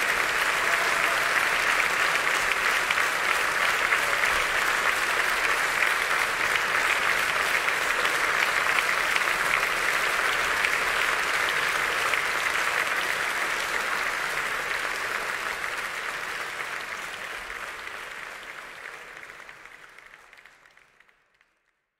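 Theatre audience applauding steadily, fading out over the last several seconds to silence.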